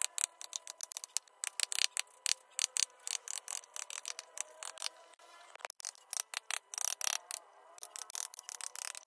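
A hand tool working wood: many short scraping or cutting strokes in quick, irregular runs, several a second, bright and hissy.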